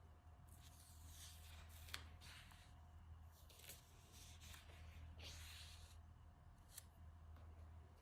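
Faint paper rustling with a few light clicks, like the pages of a handmade book being handled and turned, over a steady low hum.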